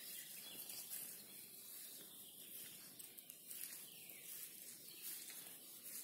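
Faint birds calling and singing, with grass swishing as someone walks through it.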